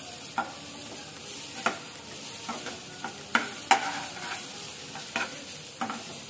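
Browned onions with ginger and garlic sizzling in hot oil in a kadhai, stirred with a metal slotted spatula that scrapes and clicks against the pan about once a second. One sharper clack comes a little past halfway.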